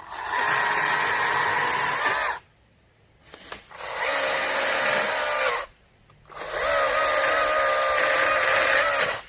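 Greenworks GS110 40-volt top-handle battery chainsaw running in three bursts of two to three seconds, with short pauses between, as it cuts a branch. Each burst has a steady electric motor whine, and the last burst runs at a noticeably lower pitch than the first.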